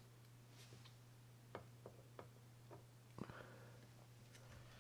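Faint, scattered light clicks and taps of small reel parts being handled as a white bushing is fitted into the handle side plate of a baitcasting reel, over a low steady hum.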